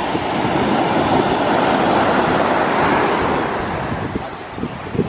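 Ocean surf breaking and washing up the beach, swelling over the first second or so and easing off near the end, with wind buffeting the microphone.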